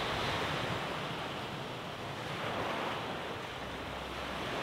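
Small waves washing onto a sandy beach: a steady rush that swells and eases gently a few times.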